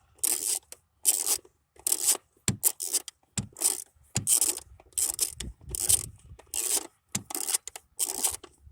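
Socket ratchet on an extension backing out a distributor cap hold-down screw: repeated short rasping strokes of ratchet clicking, about one and a half a second.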